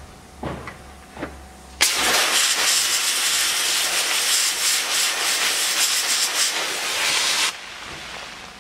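Sandblasting gun blasting abrasive grit at a steel moped frame: a loud, even hiss of air and sand that starts abruptly about two seconds in and cuts off near the end. A couple of short scrapes come before it.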